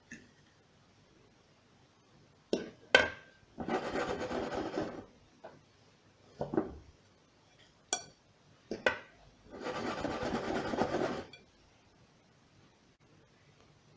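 Kitchen prep handling: a few sharp knocks and clinks, and two rasping, scraping passes of about a second and a half each.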